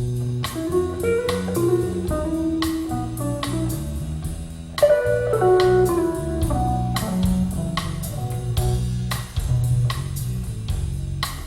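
Instrumental passage of a guitar-led blues-rock song played over B&W 603 loudspeakers: a picked guitar melody over bass and a steady drum beat, with no singing.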